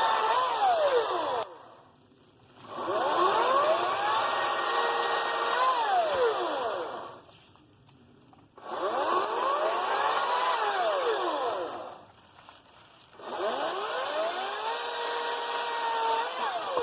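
Ryobi 40V 14-inch battery chainsaw running in repeated bursts of a few seconds each, four times. Each time the motor whine climbs as the saw ramps up to speed, holds, then falls away when the trigger is let go.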